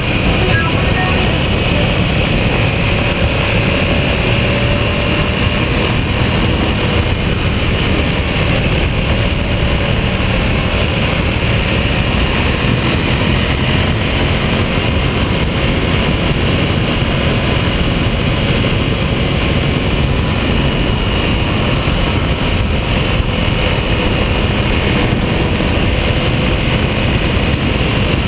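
Buell 1125R motorcycle riding at a steady speed: a steady rush of wind over the low-mounted camera's microphone, with the bike's V-twin engine droning at an even pitch underneath.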